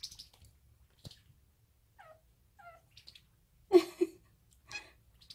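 Munchkin kitten chattering in a delicate, thin voice: soft, short falling chirps about two seconds in, then louder chirps near four seconds and again near five.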